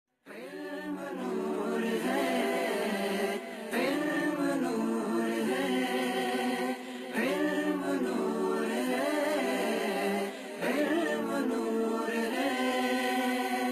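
Unaccompanied Urdu nasheed intro: layered voices singing a melody over a steady held low vocal note, in phrases of about three and a half seconds with short breaks between them.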